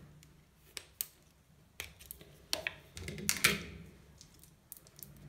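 Scissors snipping thick nylon monofilament fishing line, with tools handled on a tabletop: a scattering of short sharp clicks and small knocks, the loudest about three and a half seconds in.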